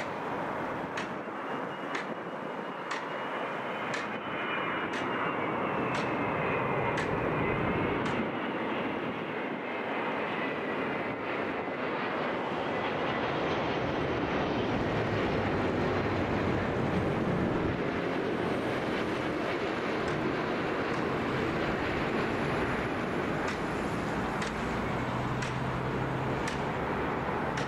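Jet airliner on final approach passing low: engine whine sliding in pitch over a broad rushing noise, growing louder over several seconds and then holding.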